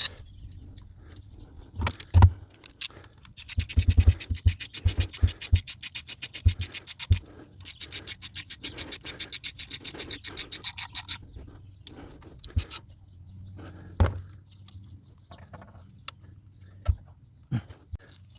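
Hand work on the engine bay: scattered knocks and scrapes, and two runs of rapid, even clicking, each lasting about three seconds.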